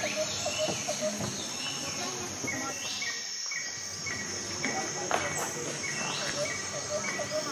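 Outdoor insect buzzing, a steady high drone, with birds calling over it. In the second half one bird repeats a short note about twice a second.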